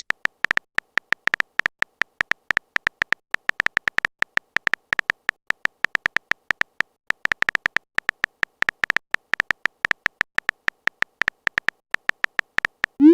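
Smartphone keyboard typing sound effect: many quick, irregular clicks, each with a short high tick of tone, as a text message is typed out.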